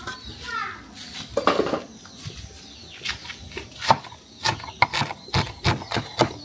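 Chef's knife chopping bitter leaf on a wooden cutting board: quick sharp knocks of the blade on the board, about three a second, starting about three seconds in.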